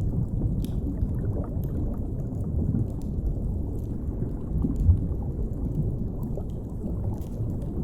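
Deep underwater ambience: a steady low rumble, with faint crackles and pops from a fire over it and one soft low thump about five seconds in.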